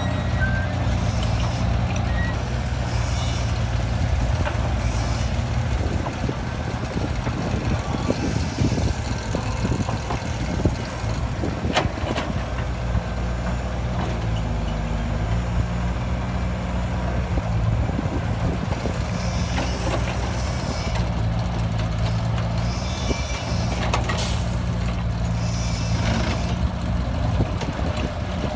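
Diesel engine of a Caterpillar hydraulic excavator running under load while it digs and loads dirt, its pitch dipping and rising near the middle as the hydraulics pull. Two brief sharp knocks stand out.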